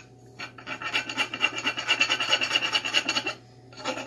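Four-in-hand rasp, its flat fine side, filed in quick back-and-forth strokes along the corners of a wooden axe handle to chamfer the edges. The strokes run for about three seconds, stop briefly, then start again near the end.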